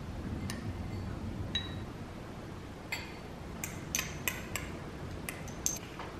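A metal spoon and small glass dishes clinking against a glass mixing bowl as ingredients are spooned in: scattered light clinks, some briefly ringing, with a quick run of them about four seconds in, over a steady low hum.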